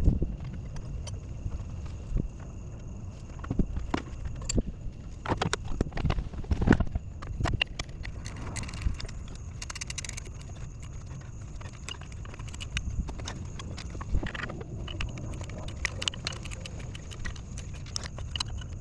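Irregular knocks and metallic clinks of hand tools working in the engine bay as a clutch fan is bolted back onto a Toyota Land Cruiser, with a short run of rapid clicks near the middle.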